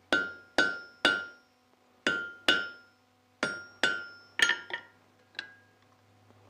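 Hand hammer striking a hot steel rod laid over a hardy cutoff tool in the anvil, cutting the rod off; each blow sets the anvil ringing. About nine blows come in groups of two or three with short pauses, and the last two are lighter.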